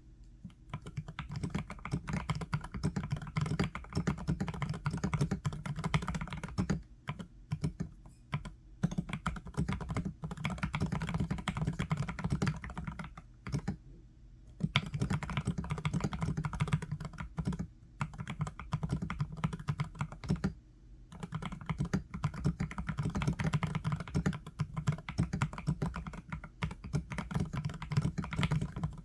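Fast typing on a full-sized Montech MKey mechanical keyboard with Akko Rosewood linear switches: a dense patter of keystrokes with a deep, muted body, in runs broken by brief pauses.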